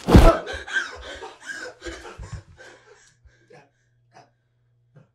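A single loud gunshot, then a run of quick, ragged gasping breaths that die away about three seconds in.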